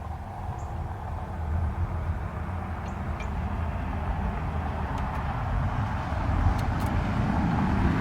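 A passing vehicle approaches, its engine and road rumble growing steadily louder.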